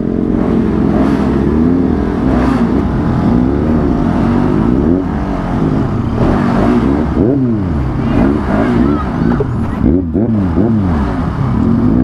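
Several motorcycle engines revving hard in first gear at full throttle up a steep slope, their pitch rising and falling over and over.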